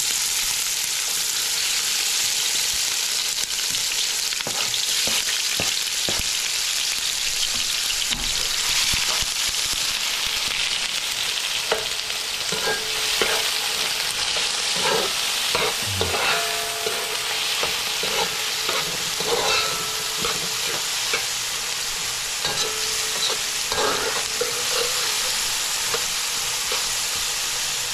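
Chopped onion, tomato, garlic and scallions sizzling steadily in hot oil in a large metal pan, with a metal slotted spoon scraping and clinking against the pan now and then as they are stirred, more often in the second half.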